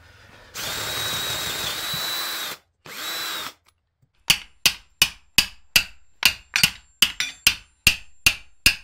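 A cordless drill spins a socket on steel bolts in two runs, a long one and then a short one, each with a steady high whine. Then a hammer strikes steel at a steady pace, about two and a half blows a second, each blow ringing briefly.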